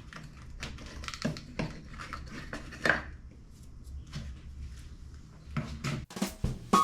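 Scattered light clicks, taps and rustles of hands working on vehicle wiring, one sharper click about three seconds in, over a steady low hum.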